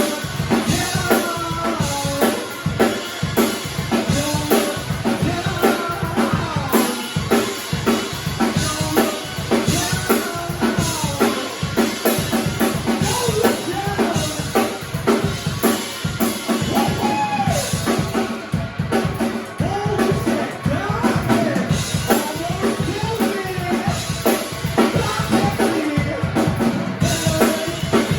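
A band playing a song live, the drum kit's bass drum and snare keeping a steady beat under pitched melodic parts.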